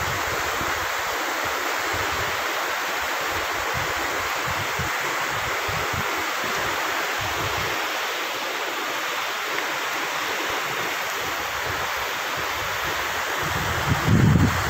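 Shallow, rocky river rapids rushing steadily below a footbridge. Near the end, wind buffets the microphone with a low rumble.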